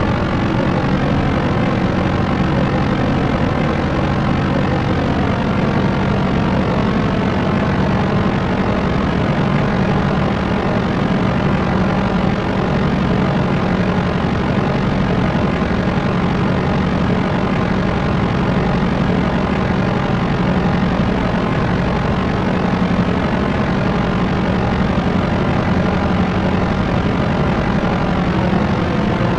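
Propeller aircraft's propellers and engines droning steadily, a constant hum made of several steady tones over a wash of noise.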